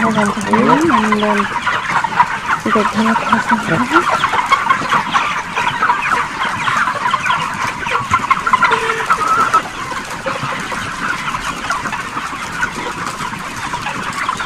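A large flock of broiler chickens calling continuously, with many short overlapping clucks and peeps. A steady faint tone runs underneath.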